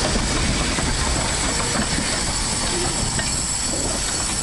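South African Railways Ng15 class steam locomotive running with its train on two-foot gauge track: a loud, steady running noise with no breaks.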